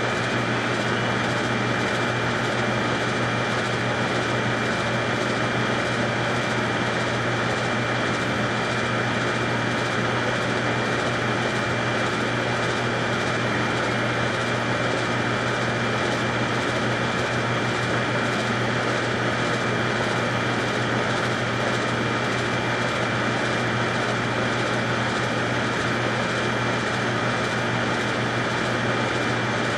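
A steady mechanical hum with a faint high whine above it, unchanging throughout.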